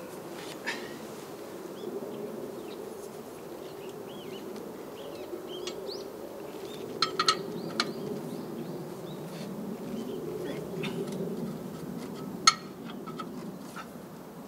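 Steady buzzing of a flying insect, with faint bird chirps. A few sharp metal clinks, a cluster about seven seconds in and one near the end, as the oil drain bolt is refitted to the rice transplanter's engine.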